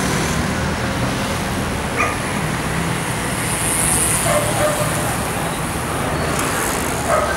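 Steady street traffic noise on a city avenue, with a low rumble underneath and a few short, sharp sounds standing out at about two, four and seven seconds in.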